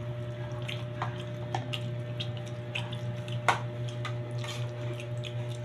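Small wet clicks and crackles of raw cabbage leaves being handled and eaten, with one sharper click about three and a half seconds in, over a steady low hum.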